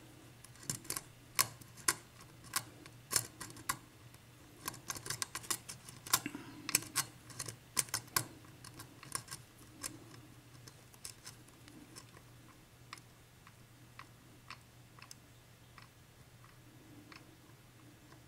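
Light, irregular clicking of a lock pick working the pin stacks of a 7-pin Dorma mortise cylinder, with the clicks thinning out toward the end. The cylinder is held in a false set by spool pins while individual pins are probed.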